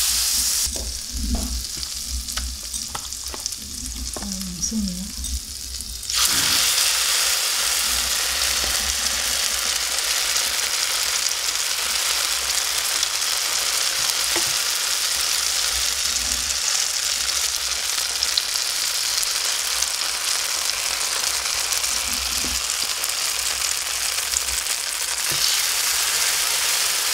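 Butter and a little oil frying in a pan, quiet at first with a few light knocks. About six seconds in, a loud, steady sizzle takes over as spoonfuls of grated potato, zucchini and pumpkin fritter batter fry in the hot butter.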